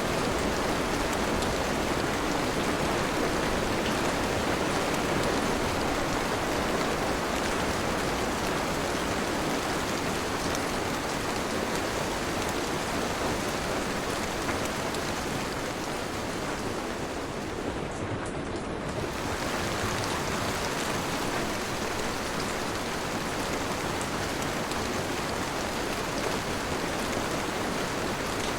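Steady rain falling, an even hiss that thins briefly about two-thirds of the way through.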